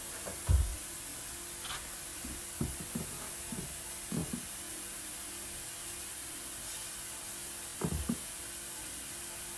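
Soft thumps and taps of hands handling a filo pastry sheet and laying it flat on a kitchen countertop, over a steady low hum. The loudest thump comes about half a second in, a few lighter ones follow around three to four seconds, and a quick pair comes near the end.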